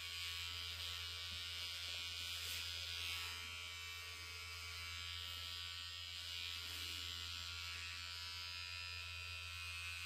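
Small cordless pet hair clipper running steadily as it trims the fur on a dog's paw pads.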